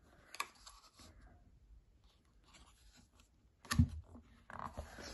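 Hands handling a cardboard board book: a few light clicks as a flap is lifted, one sharp knock near the end, then a hand rubbing across the page.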